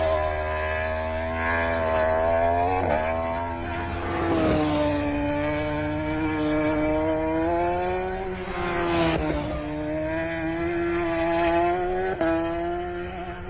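Road-racing motorcycle engine run hard at high revs. The pitch rises and dips, with a few sudden breaks like gear changes.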